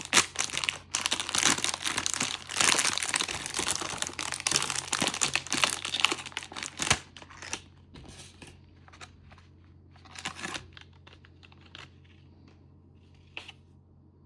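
Plastic candy packaging crinkling as it is handled, a dense crackle for about seven seconds that then thins out to scattered light crackles and two short rustles.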